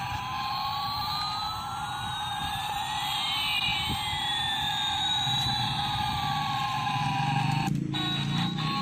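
Electronic siren-like sweep: two tones glide in opposite directions, one rising and one falling, crossing about halfway through, over a steady hum. It cuts off abruptly about a second before the end.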